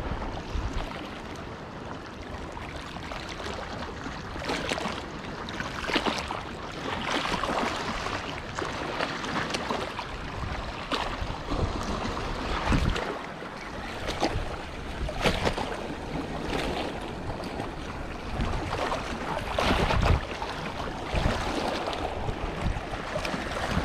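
Sea waves washing against the rocks with wind buffeting the microphone in irregular gusts.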